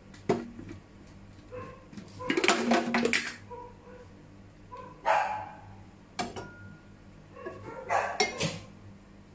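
A dog barking repeatedly, mixed with clanks and clatter of a metal frying pan and a plastic oil bottle being handled on the stove: a sharp knock near the start and louder clattering about two seconds in and near the end.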